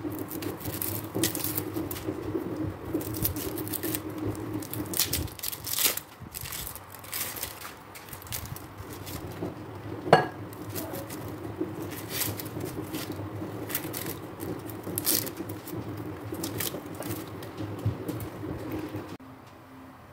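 Dry onion skins crackling and rustling as onions are peeled by hand with a knife, the blade scraping the skins, with many short crackles and one louder sharp click about halfway through.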